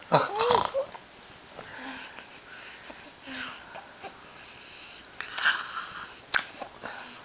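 Baby making small breathy vocal noises and smacking his lips, with two sharp smacks in the second half. The lip-smacking is a new sound he has only just started making.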